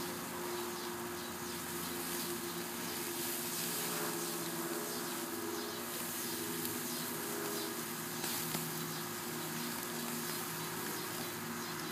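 Steady hiss and sizzle from a wood-fire grill throwing off steam, under a steady buzzing drone.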